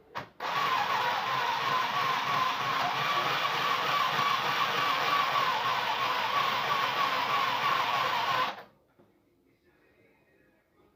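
Mini sewing machine running at a steady speed while stitching, starting just after the beginning and stopping abruptly about eight and a half seconds in.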